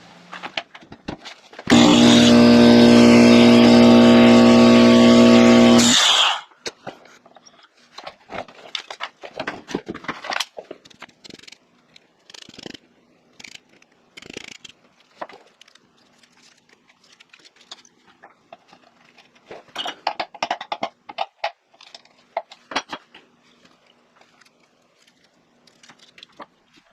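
Coleman Powermate air compressor's electric motor and pump running loudly for about four seconds, then cutting off suddenly. Afterwards there are scattered clicks and knocks of parts being handled.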